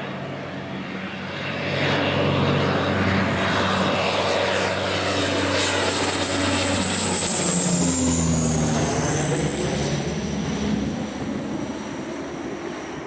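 Propeller airplane flying low overhead: its engine swells to full loudness, holds, then fades as it passes away, the pitch of its whine dropping as it goes.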